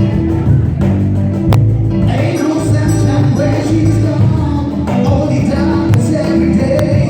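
Live band playing, with a female singer's voice and a tambourine-like jingle over the beat.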